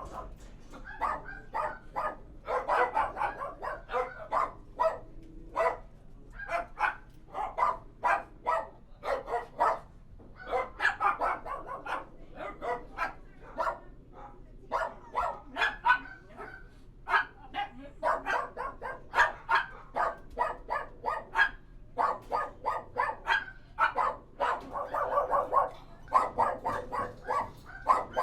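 Several dogs barking at once inside a kennel, with dense, overlapping barks that keep coming in flurries and brief lulls, over a steady low hum.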